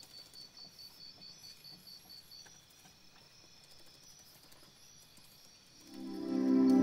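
Faint, high, cricket-like chirping, about four short pulses a second, fading out after a couple of seconds into near quiet. About six seconds in, soft ambient music with sustained notes swells in and becomes loud.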